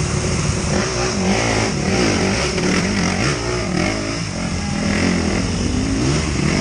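Off-road vehicle engine revving hard and unevenly, its pitch rising and falling again and again as it works up a slippery waterfall climb.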